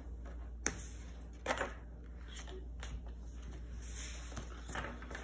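Tarot cards being shuffled by hand: scattered soft card clicks and short rustles, over a low steady hum.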